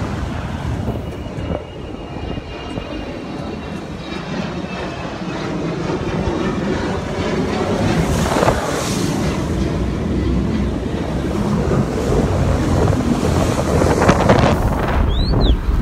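Jet ski running under way, its engine drone mixed with splashing water and wind buffeting the microphone, growing gradually louder. Two short high chirps sound near the end.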